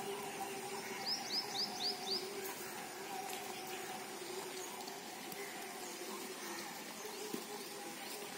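A bird calling a quick run of five or six sharp, descending chirps about a second in, over a steady low hum.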